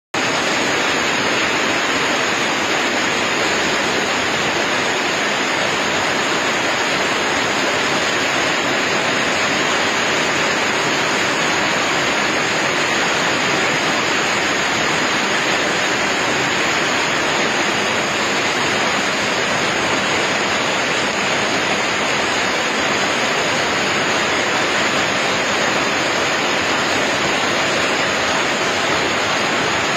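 Heavy hailstorm with rain: hailstones and rain pouring down in a dense, steady hiss that never lets up.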